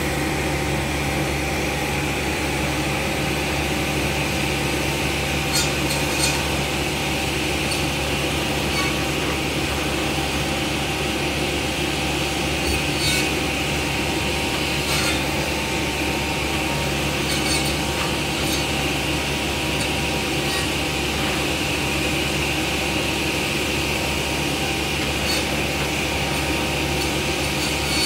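Jarraff tree trimmer running steadily, its diesel engine and hydraulics droning with a steady whine, while the boom-mounted saw works in the tree limbs. Short sharp cracks come now and then, several times over the stretch.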